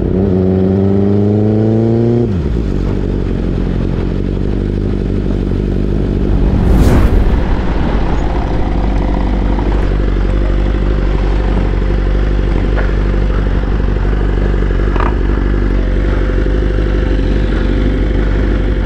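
BMW superbike engine revving up for about two seconds, then dropping back to a steady idle. About seven seconds in there is a loud, brief rushing sound, the loudest moment.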